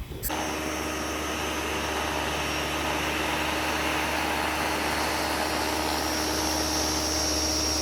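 Flymo Easiglide 300 electric hover mower running while mowing: a steady motor whine over the rush of its fan, starting about a third of a second in.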